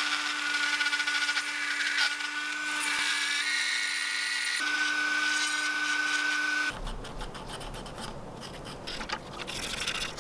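Dremel rotary tool running with a steady whine as its cylindrical cutter grinds a cutout in clear Lexan polycarbonate. The motor stops about two-thirds of the way through, and quieter scratchy rubbing of the plastic follows.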